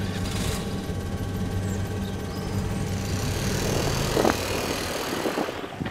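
Motorbike engine running steadily with an even low hum, which drops away near the end.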